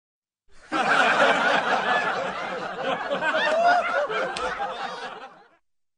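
Laughter from several voices at once, in a dense overlapping burst that starts about half a second in and cuts off abruptly about five and a half seconds in, like an edited-in laughing sound effect.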